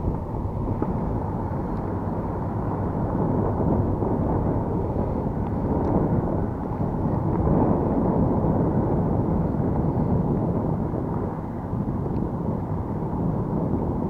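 Strong wind buffeting the microphone: a steady low rumble that swells and eases.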